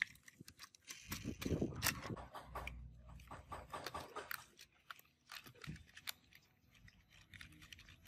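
Irregular light clicks, taps and scrapes of small parts being handled and fitted by hand.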